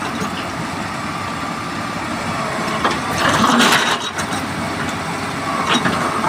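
Heavy machinery engine running steadily, with a louder noisy burst about three seconds in and a few short knocks near the end.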